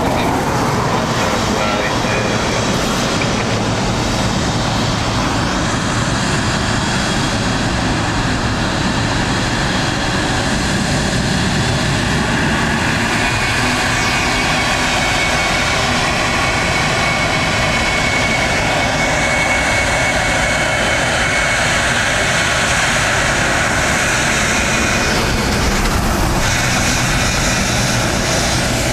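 Boeing 777-300ER taxiing past at close range, its GE90-115B turbofan engines running at low taxi power: a steady loud jet rush with a whining tone that sets in about halfway through.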